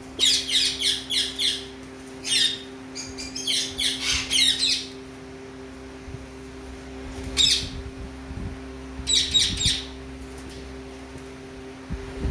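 Pet parrots calling in quick runs of sharp, high-pitched notes, about five or six notes a second, in several bouts with pauses of a few seconds between them.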